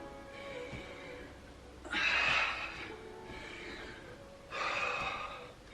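A woman breathing hard from exercise, with two loud, forceful exhales about two and a half seconds apart.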